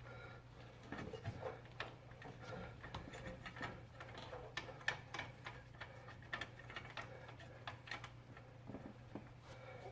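Faint, irregular light metallic clicks and ticks of hand tools and hub bolts being worked, over a low steady hum.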